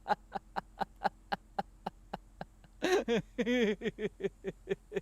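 A man laughing on purpose: quick breathy 'ha' pulses about four a second, breaking into a louder, voiced laugh about three seconds in, then tapering off in quieter pulses.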